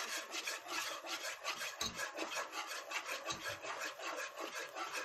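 Wire whisk stirring a thick flour-and-ghee roux in a metal pot, scraping in quick, even strokes several times a second. This is the roux for a béchamel, cooking before the milk goes in.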